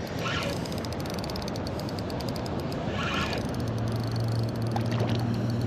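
Fishing leader grinding against a hooked fish's teeth as the fish is played on a spinning rod, a fine rapid ticking over wind and lapping water, with a risk that the leader breaks. A steady low hum joins a little past halfway.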